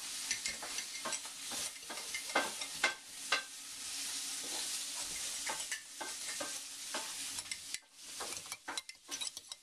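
Chopped onion sizzling in hot oil in a frying pan while a utensil stirs it, clicking and scraping against the pan. The sizzle is steadiest through the middle and drops away briefly near the end.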